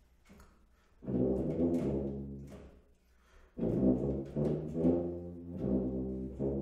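Small jazz ensemble of tuba, saxophone and electric guitar playing an arranged pop tune, with the tuba carrying a low bass line. The playing starts about a second in, breaks off briefly in the middle, and comes back louder.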